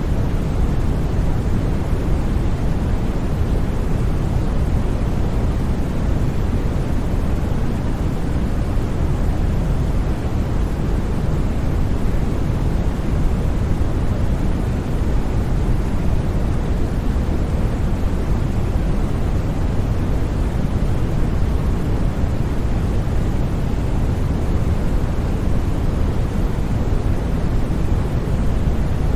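Steady, unbroken synthetic white noise for sleep, a constant hiss weighted toward the deep end with no changes or other sounds.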